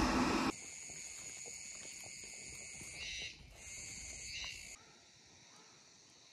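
A small truck driving past, loud and cut off abruptly about half a second in, gives way to a steady high-pitched drone of insects. Two short bird chirps come through the drone, which fades to faint near the end.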